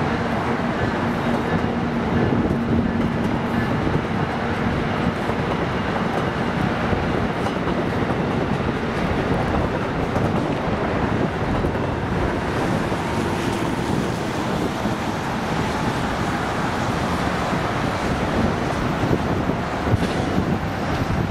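New Jersey Transit trains moving through the station tracks: a steady rumble of wheels on rail as a multilevel commuter train pulls away and a locomotive-hauled train approaches. A faint steady hum fades out after the first few seconds.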